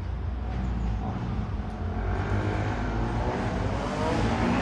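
Class 185 diesel multiple unit approaching, its engine note rising as it accelerates and growing louder over a steady low rumble.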